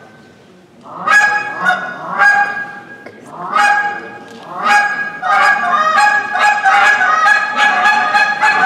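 Hand-blown goose call imitating Canada geese: after a short pause, separate honks come in small groups, then from about five seconds in a fast, steady run of honks and clucks, about three a second.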